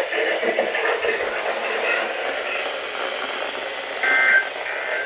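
NOAA Weather Radio receiver hissing with static, then about four seconds in a short, loud two-tone data burst: the SAME end-of-message signal that closes the weekly test broadcast.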